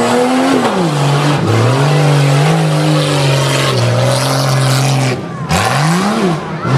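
Jeep Cherokee XJ's engine under load on a dirt course, revving up and down as it works over mounds, holding a steady pitch through the middle, dropping off briefly about five seconds in, then a short rev up and back down near the end.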